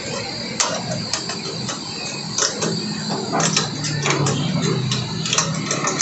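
Irregular sharp clicks and taps of hand work on a solar panel's metal frame as it is fitted on a corrugated metal roof, over a steady low hum.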